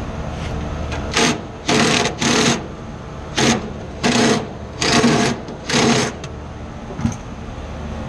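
Cordless drill with a nut-driver bit, run in seven short bursts of whirring.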